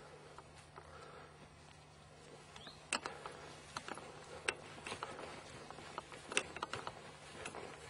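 Faint irregular clicks and light knocks, more frequent from about three seconds in: golf clubs rattling in a carried golf bag, with footsteps on grass.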